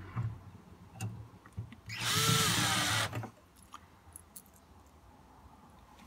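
Cordless drill-driver running in one burst of about a second, driving a screw into the backplate of a door's lever handle, with a few light clicks of the bit and screw before it.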